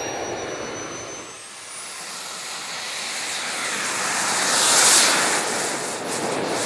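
Radio-control model jet's small turbine engine: a high whine rising in pitch, then a rushing jet noise that swells to its loudest about five seconds in and then eases.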